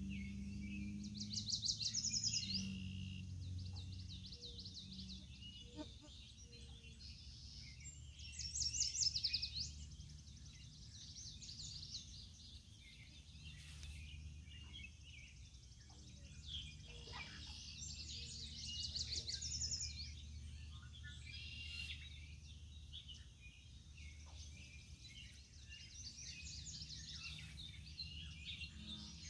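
Songbirds singing in the open: a high song made of rapid, fast-repeated notes comes back about four times, with quieter chirps between, over a steady low rumble.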